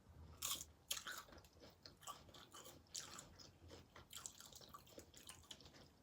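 Close-up chewing and crunching of tortilla chip nachos with black beans, a run of irregular crisp crunches and wet mouth clicks, the sharpest about half a second and a second in.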